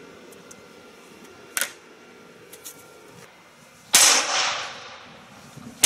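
Blows striking an arm-mounted tactical shield: a small sharp knock, then a loud crack about four seconds in that rings and fades over a second or so, and another crack right at the end.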